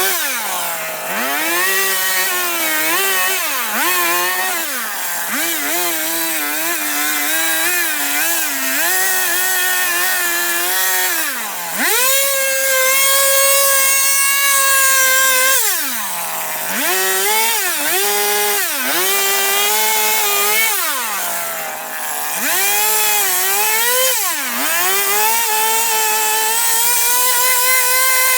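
Two-stroke chainsaw carving wood, its engine revving up and dropping back toward idle again and again between short cuts, with one longer cut held at full throttle for a few seconds around the middle.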